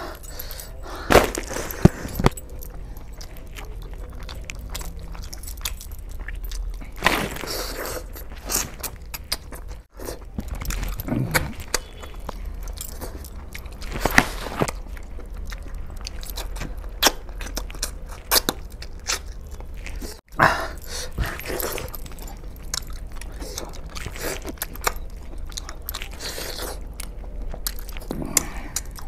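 Close-up wet chewing and lip smacking with many short sharp mouth clicks, as a man eats a chicken leg in curry and rice with his hands, over a low steady hum.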